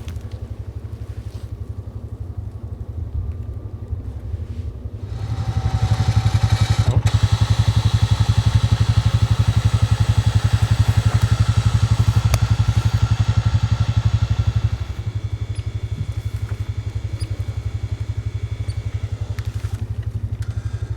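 A vehicle engine idles, then runs at higher revs from about five seconds in until about fifteen seconds, before dropping back to idle.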